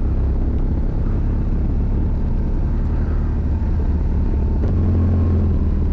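Motorcycle engine running and wind rushing while riding, picked up by a microphone clipped inside the rider's helmet: a steady low drone that swells slightly a little over two-thirds of the way through.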